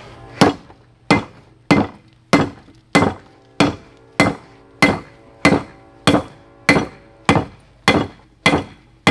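Three-pound hand hammer striking hot steel on an anvil in a steady rhythm, roughly one blow every 0.6 seconds, each with a short metallic ring, as the stack is hammered together at forge-welding heat.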